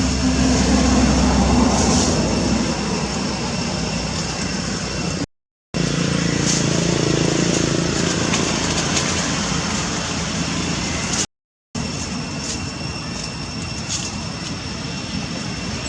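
Steady outdoor background noise with a low rumble, broken twice by a sudden dead silence of under half a second.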